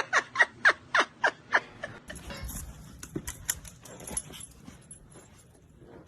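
A dog yipping rapidly in short, high calls that fall in pitch, about five a second, then stopping about a second and a half in. Scattered rustles and light knocks follow.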